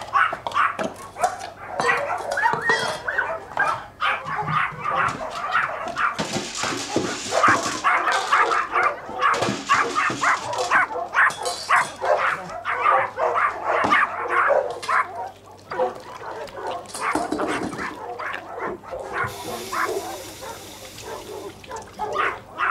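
Dogs yapping, barking and whimpering over and over, with two stretches of hiss partway through.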